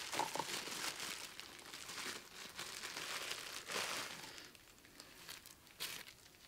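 Thin clear plastic bag crinkling and rustling as a figure is unwrapped by hand, with irregular crackles; it dies down about four and a half seconds in, leaving a couple of short rustles near the end.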